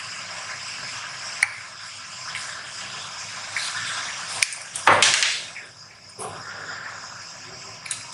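Handheld snap-fastener pliers being worked on a padded fabric bag, punching a hole for a snap: a few light metallic clicks, and a louder clattering rustle about five seconds in. A steady hiss runs underneath.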